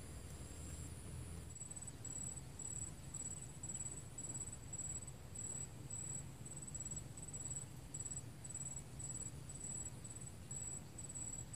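Insect chirping high and thin: a steady trill that about one and a half seconds in breaks into regular short chirps, roughly two a second, over low steady background noise.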